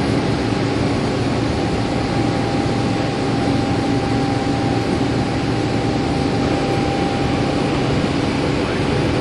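Meitetsu 100 series resistance-control electric train running at steady speed through a subway tunnel, heard from inside the car: an even rumble of wheels and running gear with a steady hum and whine from the motors and gears.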